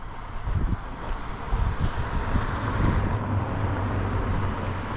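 A vehicle driving past: its running and tyre noise swells over the first few seconds and then slowly eases, with wind buffeting the microphone.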